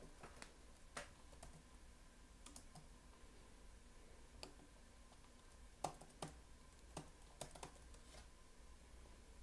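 Faint typing on a computer keyboard: about a dozen short, irregular key clicks with pauses between them.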